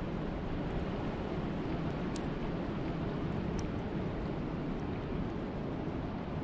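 Steady wind and rain: an even, deep rush with a couple of faint ticks.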